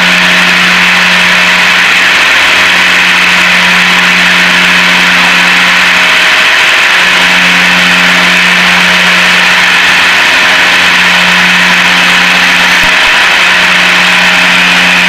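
Steady drone of a Piper Seneca's twin piston engines and propellers in flight, heard inside the cabin. It is a constant hum with a low tone that briefly fades twice and returns.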